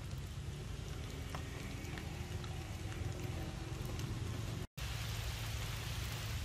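Rain falling in a steady patter, with scattered single drops ticking and a low rumble underneath. The sound cuts out for an instant a little after four seconds in, and the rain is denser after that.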